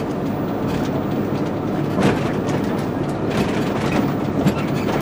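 Coach bus cabin noise on the move: a steady engine and road rumble, with a few knocks and rattles as the bus rolls over bumps.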